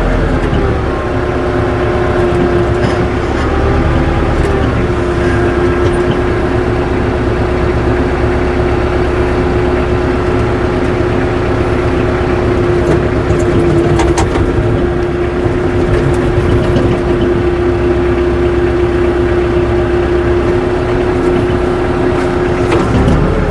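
Tractor engine running at a steady speed with a steady whine. The pitch wavers briefly about four seconds in and changes near the end.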